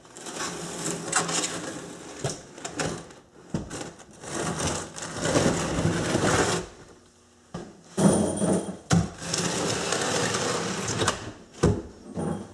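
Heavy cut granite countertop slab being slid across the cabinet top and shoved into place against the other slab: rough stone scraping in three long pushes, with a few knocks between.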